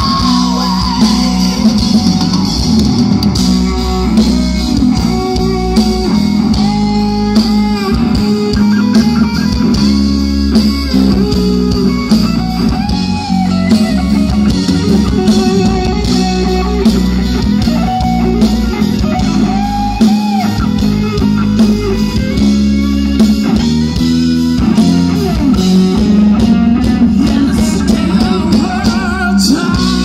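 Live rock band playing loudly through a PA, with electric guitar prominent over bass, drums and keyboard.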